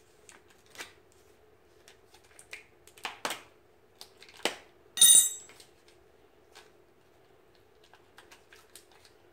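Clicks, taps and rustling from handling and opening a shrink-wrapped package of new brake pads. About five seconds in comes a sharp clink with a short ring, the loudest sound. A steady low hum runs underneath.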